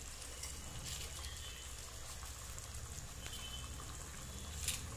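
Kuzhambu (curry) simmering in a steel kadai, a faint steady bubbling, as pieces of fried papad are dropped in. A light click near the end.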